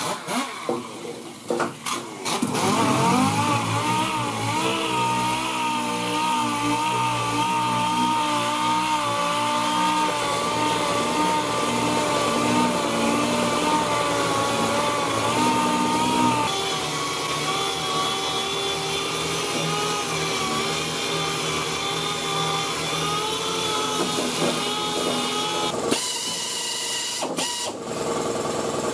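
Pneumatic dual-action (DA) sander running against the sheet-steel inner fender panel, a steady whine whose pitch wavers slightly as the pad is pressed into the metal. It starts after a few knocks about two seconds in, and there are a few sharp breaks near the end.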